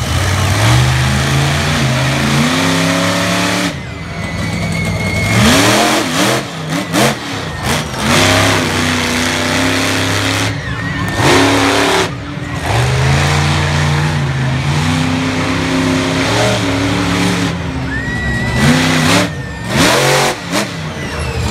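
Monster truck engine revving loud and hard, its pitch climbing and falling again and again, with several short drops where the throttle is lifted.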